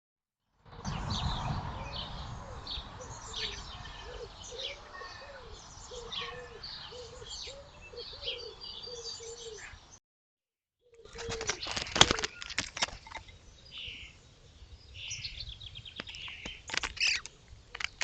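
Birds at a garden pond: small birds chirping, over a low call repeated about ten times. After a short break, sharp flutters and knocks sound, as of wings, with more chirps.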